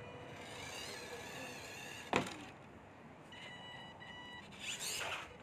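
Small electric motor of a 1/12-scale RC crawler whining at a wavering pitch as the truck climbs a ramp, with one sharp knock about two seconds in and a steady high whine a second later.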